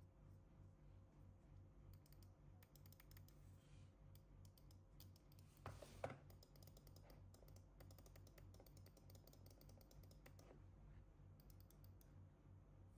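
Faint handling sounds of an Apple Magic Mouse and its cardboard packaging: scattered light clicks and taps, with one louder brief rustle and click about six seconds in as the cable tray is handled. A faint low hum sits underneath.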